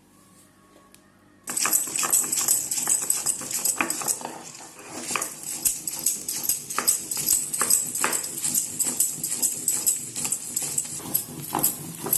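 Spice paste of mustard, chillies and ginger being ground by hand on a stone, with the rough scraping of stone on stone in quick repeated strokes. It starts after a second and a half of near silence.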